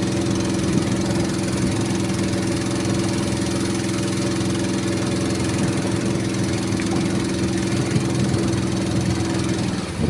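A small motorboat's engine runs at a steady pitch while the boat is under way, with water hissing along the hull. The engine note stops shortly before the end.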